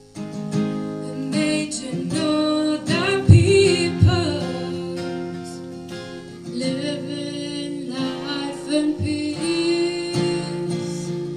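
Female voices singing into microphones over a strummed acoustic guitar, with two low thumps about three and four seconds in.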